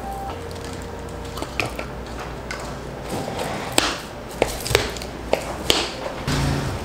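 Clear plastic dome lids pressed and snapped onto plastic iced-drink cups: about five sharp plastic clicks in the second half.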